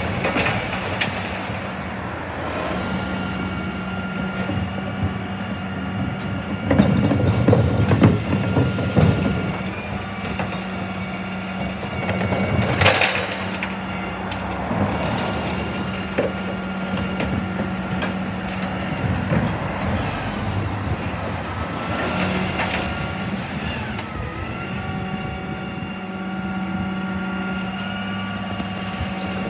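A Dennis split-body bin lorry's diesel engine running steadily while its rear lifts tip wheelie bins, with a higher whine coming and going. There is a loud stretch of clattering about seven to nine seconds in, and one sharp crash about thirteen seconds in.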